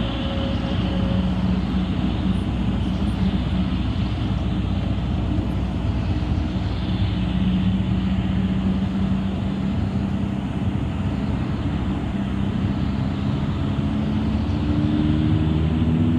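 City bus running: steady engine and road noise, with the engine note climbing near the end as the bus speeds up.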